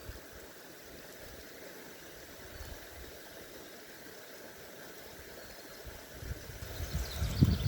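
Faint steady outdoor noise, with low rumbling building near the end.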